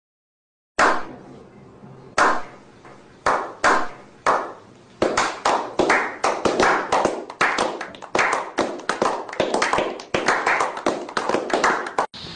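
A slow clap by a small group of people: single sharp hand claps about a second apart, speeding up into quick, steady applause from about five seconds in.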